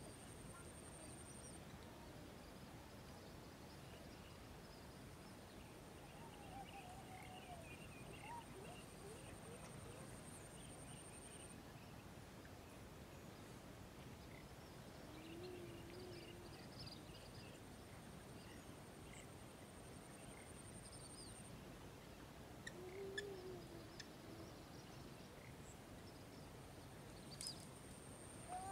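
Quiet rural ambience with faint bird calls: scattered chirps and two low hooting calls, one about halfway and one about three quarters in. A thin high steady whine comes and goes.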